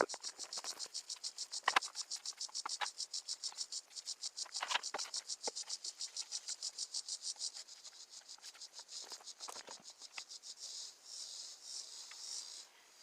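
An insect chirping in a fast, even, high-pitched pulse, slowing to spaced chirps near the end, with a few faint knocks from handling.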